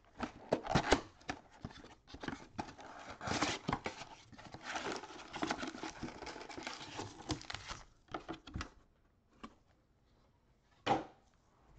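Cardboard Panini Prizm mega box being opened and its foil-wrapped card packs tipped out: dense crackling and rustling of cardboard and wrappers for about eight seconds, then a few scattered taps and one sharper knock near the end.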